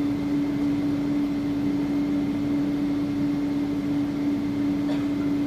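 Steady airliner cabin noise on the ground before takeoff: a constant hum of the idling engines and cabin air, with one strong unchanging tone. A single faint click near the end.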